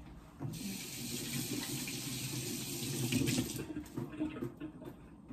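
Kitchen sink tap running for about three seconds while hands are rinsed under it, then shut off abruptly.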